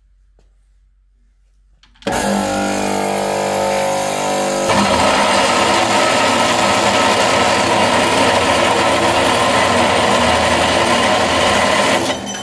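Metal-cutting cold saw switched on about two seconds in, its motor and blade spinning with a steady hum. From about five seconds the blade cuts into a steel bar clamped in its vise, adding a loud harsh cutting noise that holds steady until it dies away near the end.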